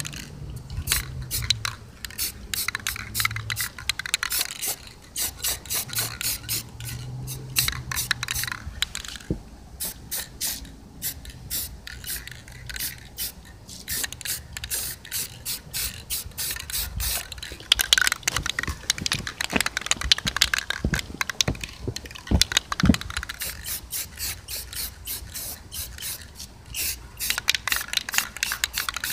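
Aerosol spray-paint can being shaken and sprayed: runs of rapid rattling clicks from the mixing ball, in several bouts with short pauses between, along with the hiss of spraying.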